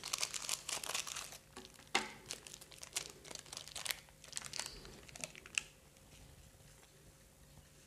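Small plastic sachet of powdered stock crinkling as it is snipped open with scissors and handled, with a sharp click about two seconds in. The crackling stops about five and a half seconds in.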